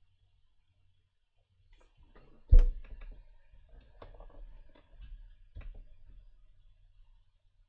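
Clicks and knocks of someone handling things at a desk close to the microphone: a sharp thump about two and a half seconds in, a scatter of small ticks, and another knock about five and a half seconds in.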